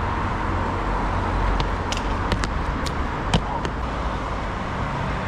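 Road traffic: cars passing on a city street, a steady rumble, with a few short sharp clicks between about two and four seconds in.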